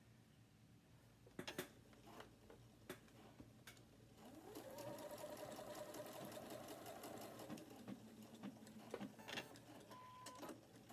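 Electric sewing machine stitching slowly through fabric and elastic: a few single stitch clicks at first, then a continuous run of stitching whose motor whine rises in pitch about four seconds in, easing off into a few more clicks near the end. A short steady beep follows near the end.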